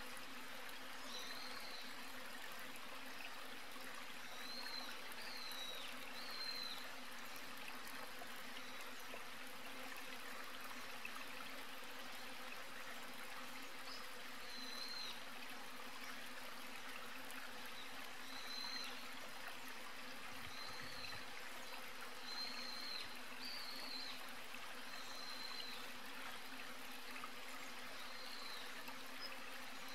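Steady outdoor ambience: an even rushing hiss like running water, with short high chirps every few seconds and a faint steady low hum beneath.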